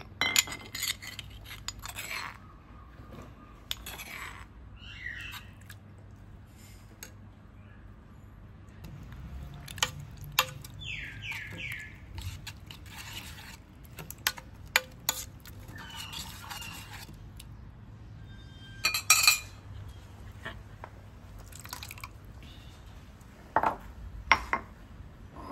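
A metal spoon scraping and clinking against a stainless steel pot as a thick paste is stirred, with knocks of a stone pestle in a granite mortar. Irregular clicks and scrapes, with a few sharper knocks.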